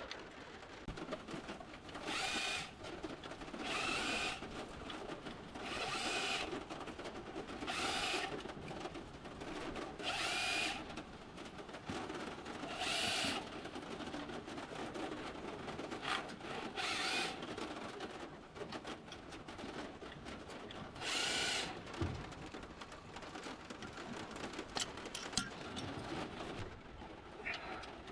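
Handheld power tool run in about seven short bursts of roughly half a second each, coming about every two seconds, with one more after a long pause. Faint clicks and clinks sound between the bursts.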